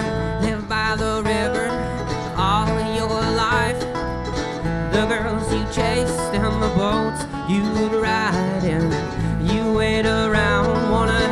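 A live acoustic band playing a country-bluegrass style song, with guitar and other plucked strings over a steady bass line.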